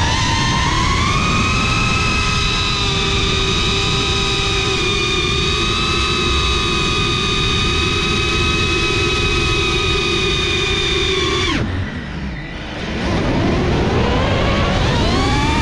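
Drone's electric motors and propellers whining at a steady pitch over rushing wind noise. About twelve seconds in the whine drops away suddenly as the motors are throttled down, then climbs back and wavers up and down in pitch.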